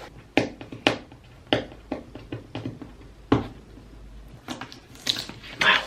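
Cardboard product boxes being handled and pried open by hand: a string of sharp knocks and taps, then a couple of longer rustling noises near the end.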